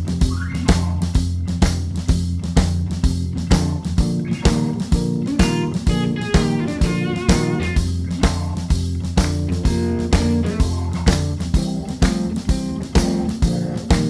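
Background music: a guitar-led instrumental with a steady beat and bass.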